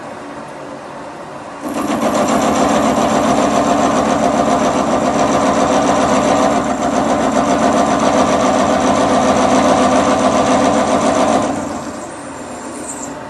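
Milling machine cutting the face of a metal knife piece: over the running machine's hum, the cutter bites in suddenly about two seconds in and grinds steadily with a high whine for about ten seconds, then eases off back to the hum near the end.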